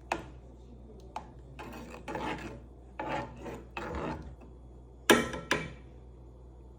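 A stainless steel spoon scraping thick honey out of its container in several rasping strokes, then two sharp metallic clinks a little after five seconds in.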